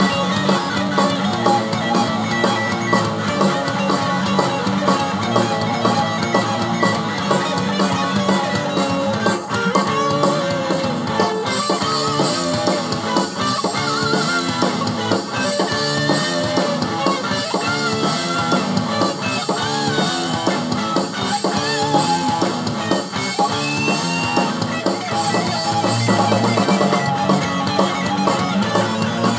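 Rock-style music with guitar and drums playing steadily; a brighter, gliding melody line comes in about twelve seconds in.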